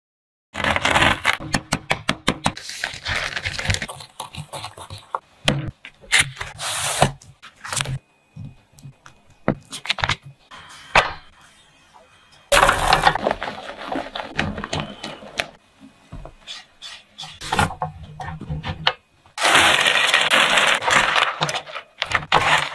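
Silicone spatula working in a nonstick frying pan: many sharp clicks, taps and scrapes on the pan while butter and a sticky nougat mix are stirred and folded, with several longer stretches of rustling noise. It begins about half a second in.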